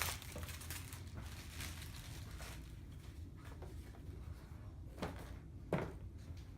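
Quiet room tone with a steady low hum, broken by a few soft clicks of handling, two of them close together about five seconds in.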